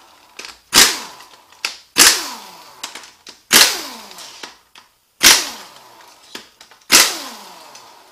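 Cordless impact wrench run in about five short trigger bursts, roughly one every second and a half, each ending in a falling whine as the motor spins down, while it backs the case bolts out of a transmission's rear housing.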